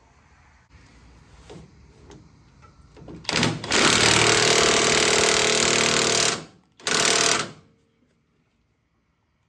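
Impact wrench hammering at a nut, a loud rattle for about three seconds, then a short second burst. A few faint knocks come before it.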